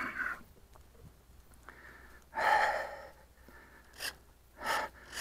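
A man's audible breath out, a short noisy puff about two and a half seconds in, followed by two brief short noises near the end.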